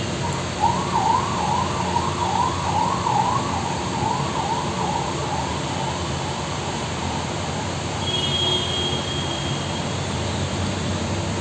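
An emergency vehicle's siren wailing up and down about twice a second over steady road traffic noise. It fades out about six seconds in.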